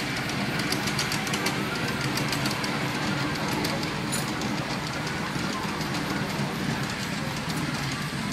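Miniature ride-on Shinkansen train running along its track, a steady rumble with its wheels clicking over the rail joints.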